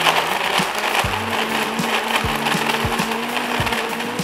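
Electric countertop blender running at speed, crushing ice into a herbal juice drink. Background music with a steady beat plays underneath.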